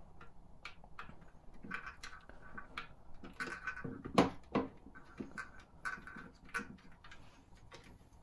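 Small clicks, taps and rubbing of plastic parts being handled as a circuit board is lined up and pressed into a plastic model shell, with one sharper knock about four seconds in.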